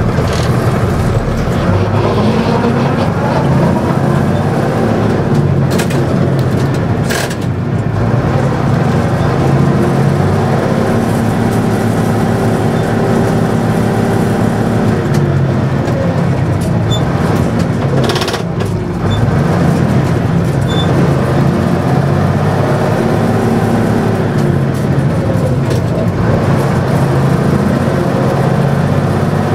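Vintage Fiat truck's diesel engine running, heard inside the cab, with its pitch dropping and picking up again as the driver double-clutches through gear and range-reducer changes. A short clunk marks the changes about 7 and 18 seconds in.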